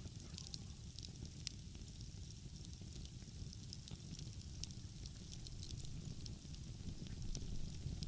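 Wood fire crackling, with frequent small sharp pops and snaps over a steady low rumble.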